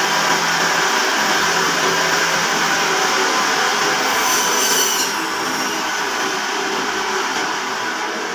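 Electric meat band saw running steadily, with a higher-pitched grinding for about a second some four seconds in as pork is fed through the blade; the sound drops a little after the cut.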